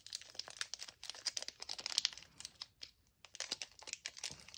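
Thin clear plastic packaging crinkling and crackling as hands work a small toy piece out of its wrapper, a string of small crackles with a short pause about three seconds in.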